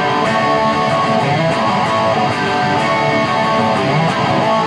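Electric guitar strummed through a Ceriatone One perCentaur overdrive pedal, burn all the way up, into an already crunchy Ceriatone amp: loud, sustained, high-gain distorted chords with a strongly mid-range tone.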